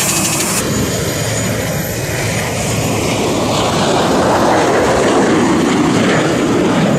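Jet airliner engine roar from an MD-80-series jet taking off, rising slightly in loudness. A brief hiss comes at the very start.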